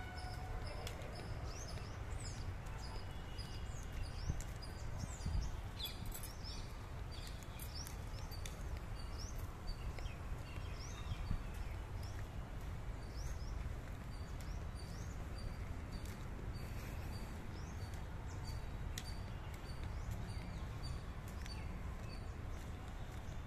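Outdoor ambience of birds chirping: many short, high, rising chirps repeat throughout over a steady low rumble.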